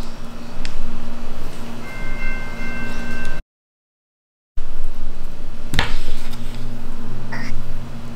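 Background music with steady held notes. It drops out to complete silence for about a second partway through, and a few sharp clicks sound over it.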